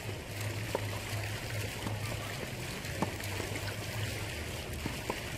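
Tennis rally: three sharp pops of racket strikes on the ball, about two seconds apart, over a steady outdoor hiss and low hum.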